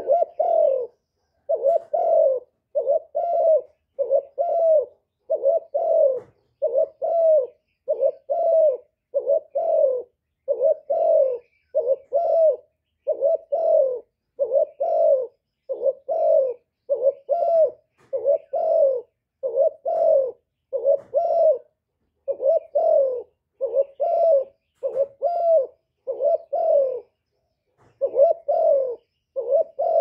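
A caged spotted dove cooing over and over: short coos a little over one a second, each falling slightly in pitch, with a brief pause near the end before they carry on.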